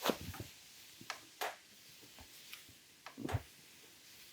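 Soft rustling of hands rubbing and pressing on a cotton uniform during a massage: about five short swishes, one about three seconds in with a dull low thud.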